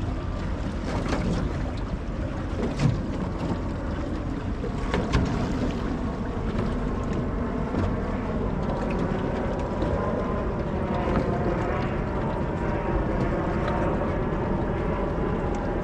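Wind buffeting the microphone over water lapping against a small aluminium boat's hull, with two sharp knocks a few seconds in. A faint steady hum joins about halfway through.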